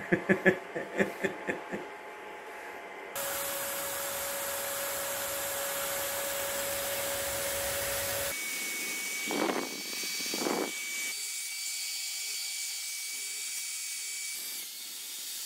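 Handheld electric die grinder with a burr running at a steady high whine, cleaning up the edges of a hole punched through a cylinder head to prepare it for welding. It starts about three seconds in; about halfway through the whine jumps higher, with two short, rougher grinding bursts soon after.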